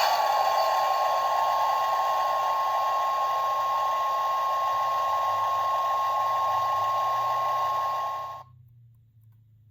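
Small car-sound gachapon toy playing one of its recorded sound effects through its tiny speaker: a steady, buzzy hiss with a single held high tone, which cuts off suddenly near the end.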